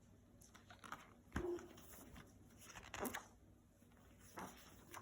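Near-quiet room with a few short, soft handling sounds, about a second and a half, three seconds and four and a half seconds in: the pages of a picture book being handled and turned.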